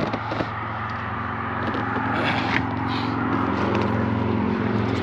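A steady engine hum that slowly grows louder, with a few light clicks and knocks about half a second in.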